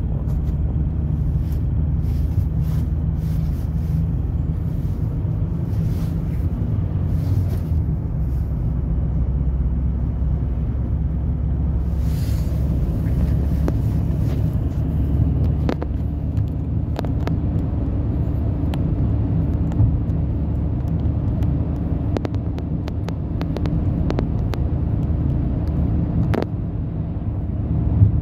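Car driving at a steady speed on smooth new asphalt, heard from inside the cabin: a steady low rumble of engine and tyre noise, with a few light clicks.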